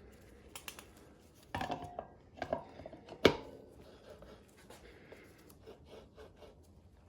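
Metal clinks, scrapes and knocks from handling motorcycle drum brake parts while new 30 mm brake shoes are test-fitted. The loudest is a single sharp metallic knock about three seconds in, which rings briefly.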